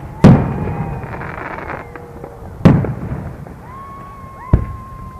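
Aerial fireworks shells bursting: three loud booms, one near the start, one about halfway and one near the end, each trailing off in a rumble.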